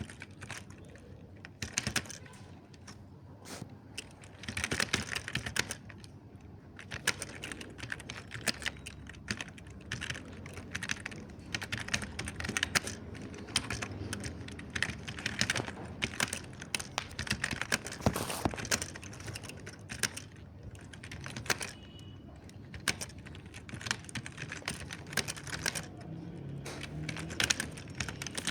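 Mechanical keyboard being typed on: irregular runs of soft key clicks with short pauses between them.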